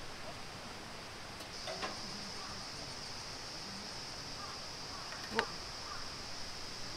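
A steady, high-pitched insect drone starts about a second and a half in and holds, over the constant hiss of a nearby stream. There is a faint click early on and one sharp knock a little after five seconds.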